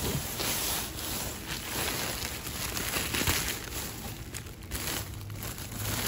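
Plastic bags crinkling and rustling in irregular bursts as they are handled and shifted.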